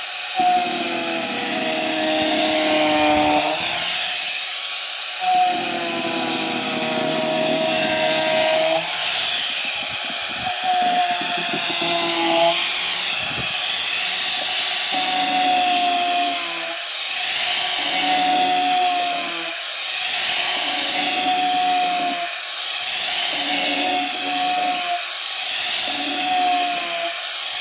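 Angle grinder fitted with a sandpaper disc, run without its guard, sanding wood: a steady high whine over a hiss. The whine sags in pitch and recovers about every two seconds as the disc is pressed into the wood and eased off.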